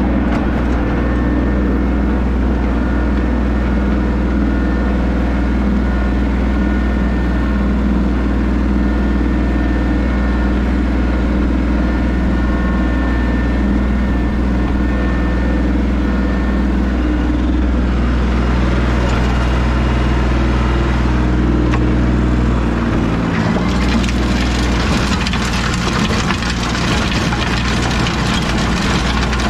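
New Holland TC33 compact tractor's diesel engine running steadily under load while driving a County Line 5-foot PTO rototiller whose tines grind up weeds and soil. A rougher, hissing grind of the tiller grows over the engine in the last few seconds.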